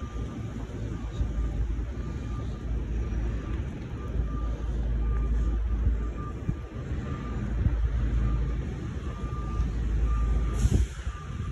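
A vehicle's reversing alarm beeping steadily, a little over once a second, over a heavy low rumble of wind on the microphone.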